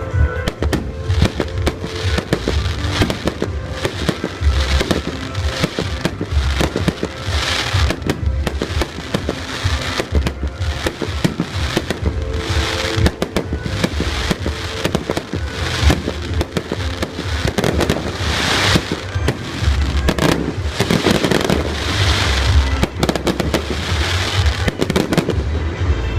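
Fireworks display: a dense, continuous run of rapid bangs and pops, with swells of crackling every few seconds.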